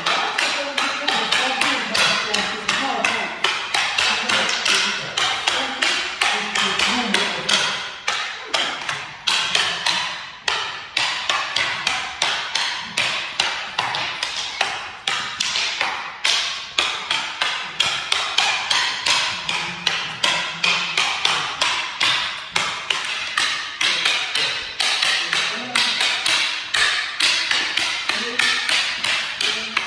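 Rattan fighting sticks clacking against each other in a fast, steady double-stick drill, about three or four sharp wooden strikes a second without a break.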